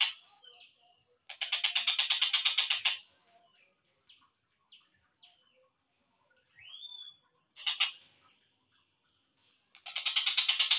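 Slowed-down recording of a tengkek buto kingfisher calling: a fast, evenly repeated rattling series of harsh notes. It breaks off, gives way to a few faint short notes and one rising call, then the rattle resumes near the end.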